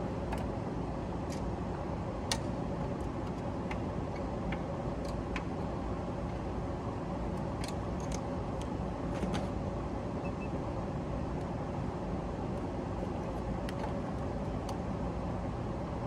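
Steady drone of rooftop HVAC machinery running, with a faint steady hum, and scattered light clicks and taps as meter probes are handled at the open disconnect.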